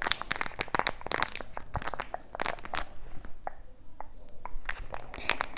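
Plastic packaging crinkling and crackling as it is handled, in dense irregular crackles that thin out for a moment about halfway through.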